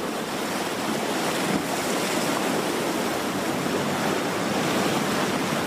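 Sea waves washing against the concrete blocks of a harbour breakwater: a steady, even rush of surf.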